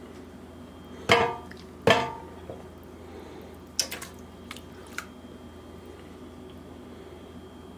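Two loud ringing clanks of metal kitchenware, about one and two seconds in, then a few lighter clicks, as the seasoned chicken liver is poured and scraped onto the oiled air-fryer pan.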